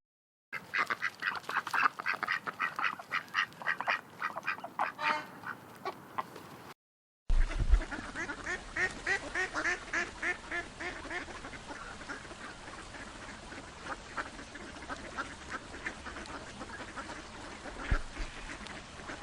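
Ducks quacking in quick runs of short, rasping calls. The quacking stops for a moment about 7 s in, then starts again and gradually grows fainter toward the end.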